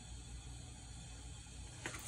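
Quiet room with a faint steady low hum; near the end, a short soft paper swish as a picture-book page is turned.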